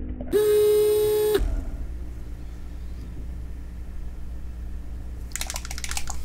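Vortex mixer running with a dropper bottle of paint pressed onto its cup: a loud, steady buzz lasting about a second. Near the end, a quick run of rattling clicks as the bottle is shaken by hand, the mixing ball knocking inside it.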